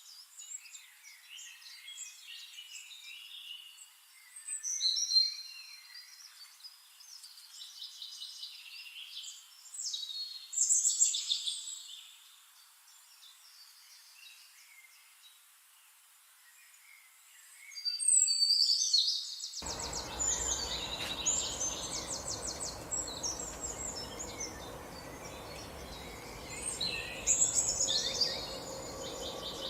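Several wild birds chirping and trilling in a mixed chorus, with the loudest calls coming in a few bursts. About two-thirds of the way through, a rapid trill of repeated notes sounds, and a steady low background noise comes in suddenly, as the bird recording changes.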